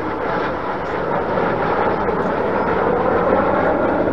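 Aircraft flying past overhead, a loud rushing engine noise that swells over the first three seconds.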